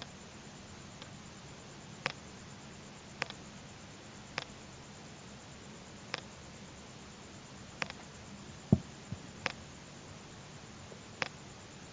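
Small sharp clicks of plastic beads and fingers knocking together as beading thread is pulled tight and knotted, about one a second, with one louder knock a little past two-thirds of the way through, over a steady low hum.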